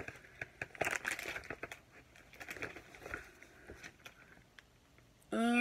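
Crinkling of plastic snack-bag wrappers and rustling paper as snack packets and the crate's booklet are handled, with scattered small rustles and clicks. Right at the end a loud, held pitched sound begins.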